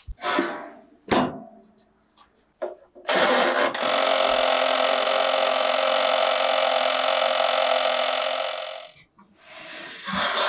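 A few knocks and clicks as the tray goes into an Aladdin toaster oven. Then a steady mechanical buzz starts abruptly about three seconds in, lasts about six seconds while the oven bakes, and stops. A rustle and knock follow as the door is opened near the end.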